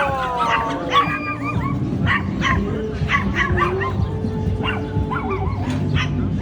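Dogs barking and yipping in short, irregular calls, one after another, over a steady low background rumble.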